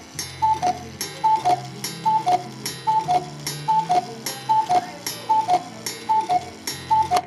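Black Forest cuckoo clock striking the hour: the cuckoo calls over and over, each call a higher note followed by a lower one with a click, a little more than once a second. The calling stops near the end.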